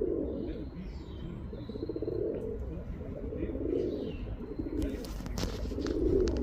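Male pigeon cooing to a female: low, rounded coos repeated every second or two. Faint high chirps sound above them, and there are a few sharp clicks near the end.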